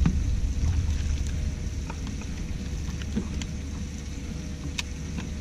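Wind buffeting the microphone as a low steady rumble that eases off slightly after the first second or so, with a few sharp clicks near the end.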